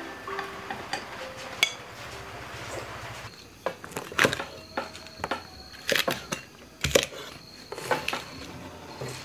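Kitchen knife chopping cabbage leaves on a thick round wooden chopping block: irregular sharp chops, starting about three seconds in.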